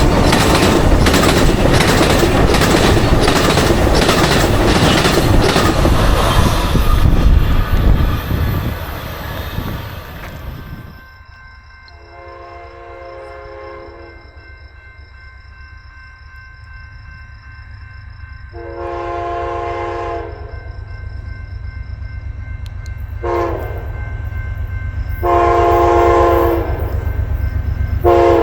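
Amtrak California Zephyr passenger train passing close by at speed: a loud rumble with rapid clacking of wheels over the rail joints, fading away. Then, over a steady low rumble, the locomotive horn sounds the grade-crossing signal: long, long, short, long.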